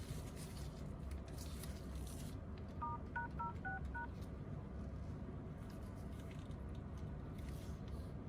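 iPhone 11 Pro dial-pad touch tones: five quick beeps a little after three seconds in, whose tone pairs match the code *#06#, which brings up the phone's IMEI. A faint steady hum runs underneath, with brief scratchy handling noise near the start and near the end.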